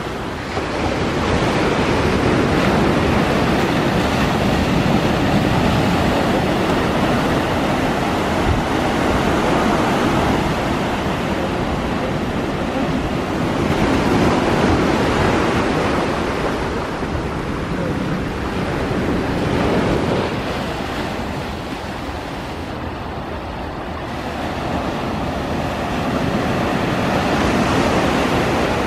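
Surf and wind rushing in a steady noise that swells and eases every few seconds.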